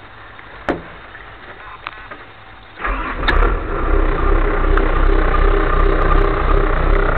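Caterpillar 320C excavator's six-cylinder diesel engine starting: a sharp click under a second in, then about three seconds in the engine catches abruptly and settles into a steady low running rumble as it begins to warm up.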